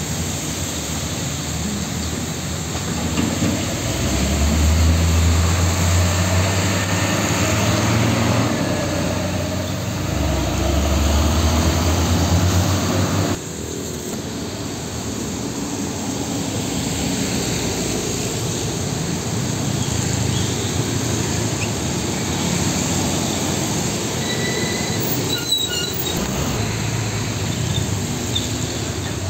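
Heavy diesel trucks passing on a road: a deep engine drone swells and fades as a truck goes by, then cuts abruptly midway to steadier traffic noise. Near the end there is a brief high squeal and a clunk.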